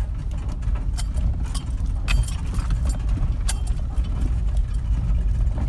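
Jeep crawling over a rocky dirt trail, heard from inside the cab: a steady low rumble of engine and tyres, with scattered clicks and rattles as it jolts over the rocks.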